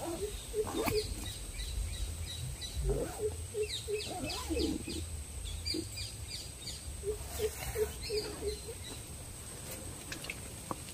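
Birds calling outdoors: several runs of short, quickly repeated low notes, with higher quick chirps over them and a low rumble underneath.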